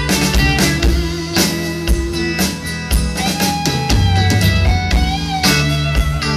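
Live rock band playing an instrumental passage: electric guitars over bass and drum kit, with no singing.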